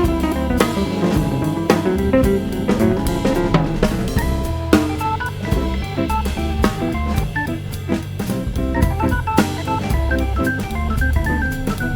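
Background music: an upbeat instrumental track with a drum kit keeping a steady beat under guitar and keyboard.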